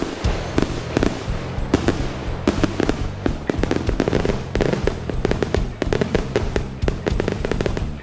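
Aerial fireworks shells bursting and crackling in quick, irregular succession, many sharp bangs a second, with music playing underneath.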